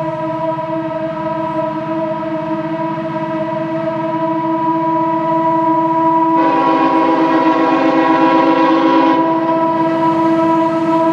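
Norfolk Southern diesel locomotives working hard up a grade, a loud steady droning whine that grows slowly louder as they approach. About six seconds in, a locomotive horn chord sounds for about three seconds over the drone.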